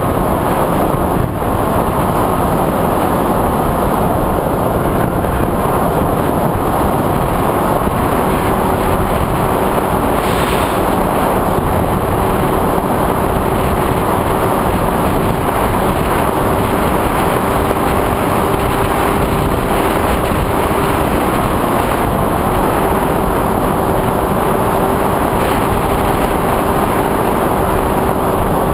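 FPV quadcopter's motors and propellers running steadily with a dense rushing noise. About a third of the way in, a steady hum-like tone comes in and holds.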